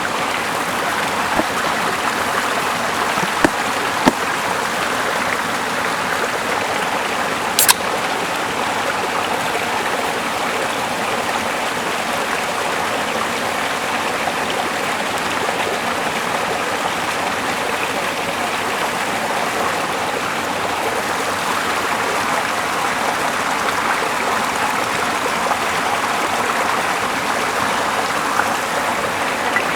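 Steady rushing water, like a stream, with a few brief sharp clicks in the first eight seconds.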